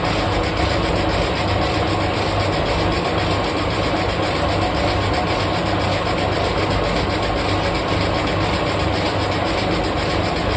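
Lathe running steadily, a constant machine hum with no break or change.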